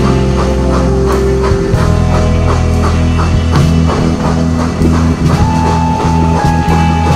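Background rock music with electric guitar, bass and a steady drum beat.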